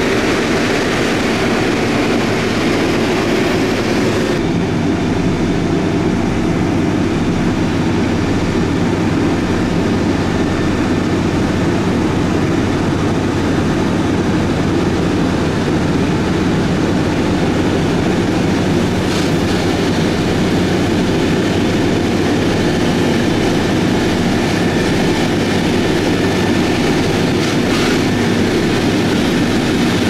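Diesel engine of a heavy road-building machine (motor grader or road roller) running steadily at work: a continuous low rumble with a steady hum. The higher hiss drops away about four seconds in.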